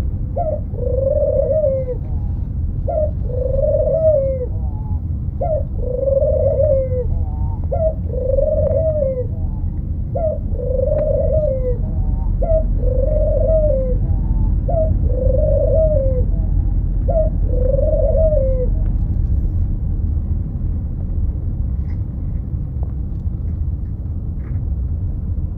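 A dove cooing: a regular run of single soft coos, one every second or so, that stops about nineteen seconds in. A steady low rumble runs beneath it throughout.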